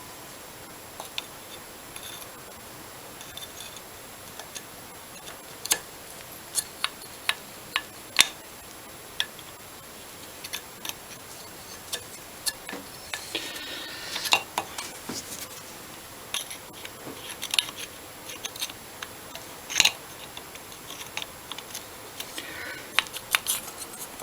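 Irregular light metallic clicks and taps of small carburettor parts and pliers being handled as an old Amal carburettor is taken apart, with a brief scraping stretch about halfway through.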